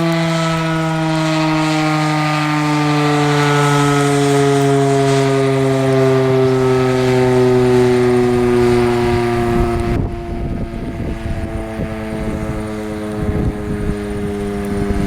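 Federal Signal Model 7 electromechanical tornado siren sounding its steady alert tone, the pitch sliding slowly downward as it winds down. About ten seconds in the sound suddenly turns duller and quieter, the tone carries on fainter, and an uneven low rumble comes in.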